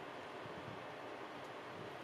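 Real wood fire burning in a fireplace: a steady soft rush of flames, with a faint crackle about one and a half seconds in.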